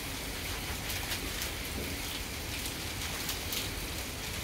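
Food sizzling in a hot frying pan: a steady hiss with many small crackles.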